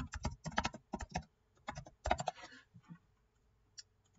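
Typing on a computer keyboard: a quick, uneven run of key clicks that stops about three seconds in, with one last click near the end.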